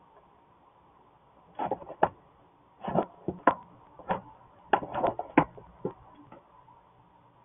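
A hen shifting about in a straw-lined nest box: irregular bursts of straw rustling and scratching with sharp clicks, beginning about a second and a half in.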